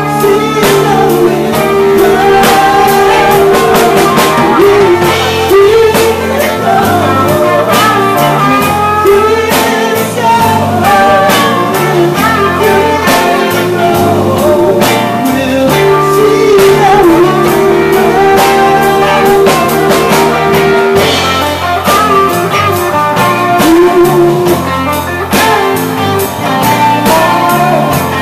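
A live rock band plays: electric guitars and a drum kit, with a woman singing.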